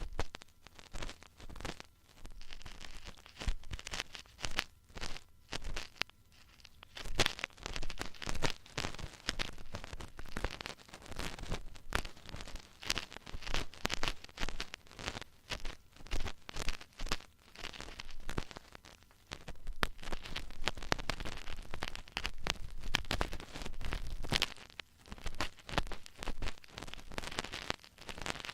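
Ear-cleaning tools scraping and rubbing right against the microphone, a dense, uneven crackling and scratching with a brief lull about six seconds in.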